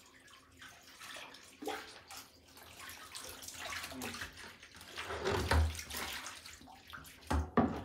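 Water running from a hose into a plastic bucket, with splashing as food is rinsed by hand in a basin. Dull knocks about five and a half seconds in and again near the end as the plastic bucket is handled.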